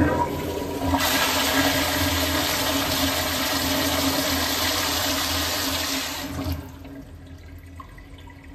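Vortens Tornado commercial toilet flushing: a steady loud rush of water that drops off sharply about six and a half seconds in, leaving a quieter trickle.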